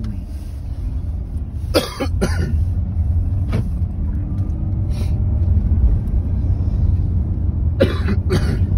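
Car-cabin road and engine rumble from a moving car, growing louder as it picks up speed. A person coughs in two short double bursts, with a few single short sounds between them.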